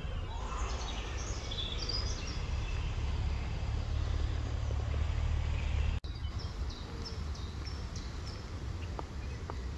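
Woodland ambience: small birds chirping in short, high calls over a low steady rumble that is heavier in the first half, with the sound cutting out for an instant about six seconds in.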